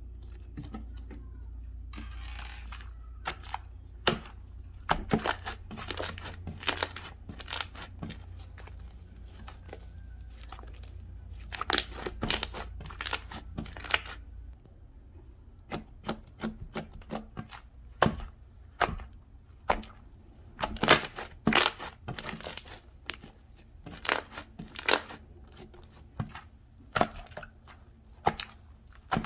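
Slime being squeezed, poked and stretched by hand, giving an irregular run of sticky clicks and small pops, several a second, louder and denser in the second half. A low hum drops away about halfway through.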